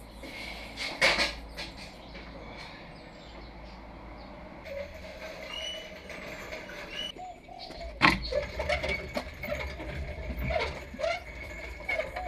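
Scattered clicks and knocks of tools and suspension parts being handled during a car's rear suspension reassembly, with a sharp knock about eight seconds in and more clatter after it. Birds chirp in the background.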